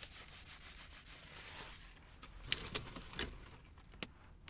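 Close rustling and rubbing of items being handled. After about two seconds this gives way to several sharp clicks and taps.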